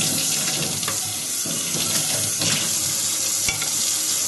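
Water from a motion-sensor kitchen faucet running in a steady stream, splashing onto a plate being rinsed and into a stainless steel sink.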